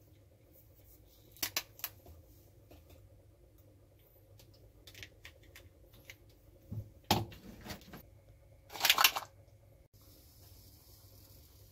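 Cooked lobster shell being cracked and pulled apart by hand: a few sharp snaps a couple of seconds in, a thud and crack about seven seconds in, and a louder crunching crackle near nine seconds.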